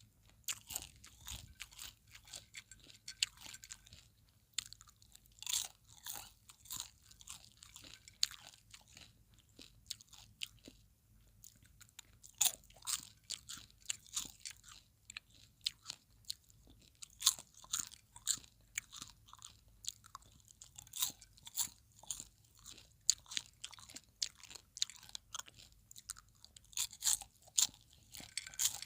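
Popcorn being chewed close to the microphone: irregular runs of crisp, high-pitched crunches, with short lulls between mouthfuls.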